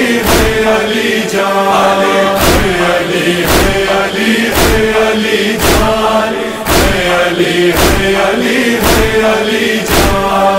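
Interlude of a noha (Shia lament): a chorus chants over a steady held drone, with a sharp beat about once a second.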